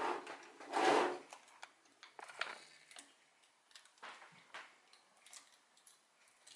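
Plastic daisy wheel being handled and pushed onto the print carriage of a Triumph-Adler SE310 electric typewriter: two louder clattering rustles in the first second, then scattered small clicks as the wheel is worked into place.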